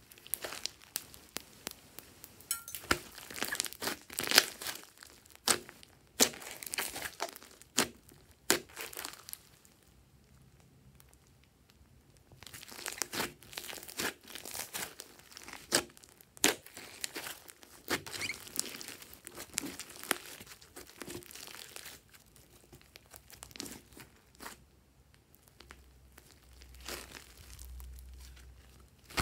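Hands squishing and pressing a large mass of slime mixed with foam beads: sticky crackling and popping in dense runs, with a couple of short quieter pauses.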